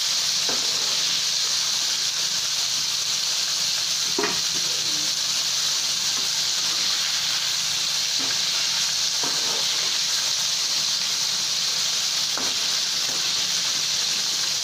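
Flour-coated mandeli (golden anchovy) deep-frying in hot oil, a steady sizzle, with a few soft taps of a slotted spoon as the fish are moved in the oil.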